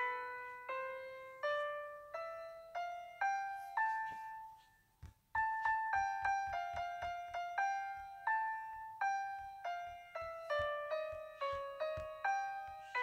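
Background piano music: a slow melody of single fading notes that breaks off for a moment about five seconds in, then resumes with quicker notes.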